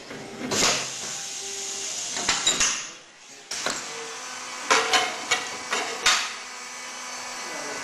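Pneumatic circular bottling machine working: sharp clacks of its air cylinders and valves, each with a short hiss of air, several in quick succession about five to six seconds in. A steady hiss of air sets in about three and a half seconds in.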